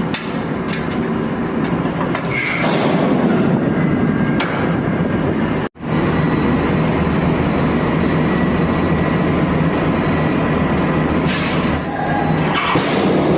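Loud, steady machinery noise of a ship's engine room, with scattered sharp clicks and two short bursts of hiss, one early and one near the end. The sound drops out for an instant near the middle.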